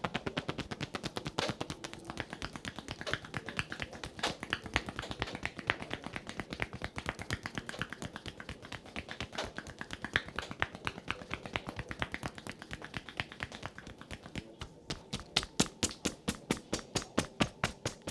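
Quick, even percussive tapping of a massage therapist's hands on a client's body, about six strikes a second. It grows louder for the last few seconds.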